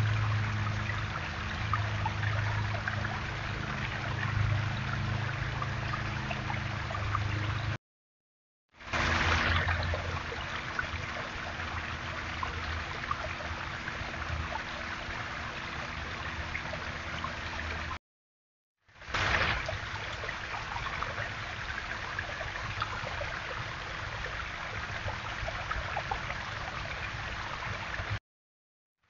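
Water trickling and splashing over a small stacked-stone backyard waterfall, a steady rush with a faint low hum underneath. It cuts to silence for about a second twice and again near the end, coming back a little louder each time.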